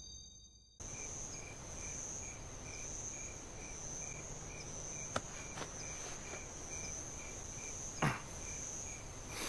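Night insects chirping: one holds a steady high trill, and another chirps about three times a second. The sound starts about a second in, and a few soft knocks fall in the second half.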